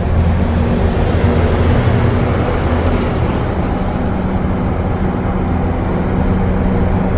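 Engine of a heavy bus-based motorhome running under load as it climbs a steep mountain grade at a crawl, heard from inside the cab as a steady low drone with road noise.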